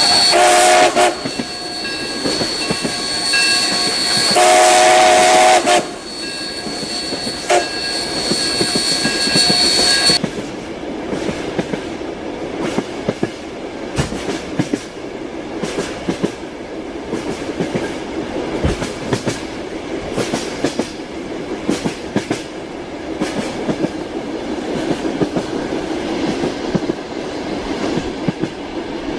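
A train horn sounds twice over the noise of a running train with a high steady whine. From about ten seconds in, this gives way to steel wheels clicking over rail joints as the train rolls along.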